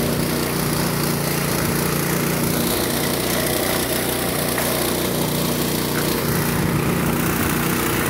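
Small engine of a portable water pump running at a steady speed, with water gushing from its discharge hose and splashing over rock.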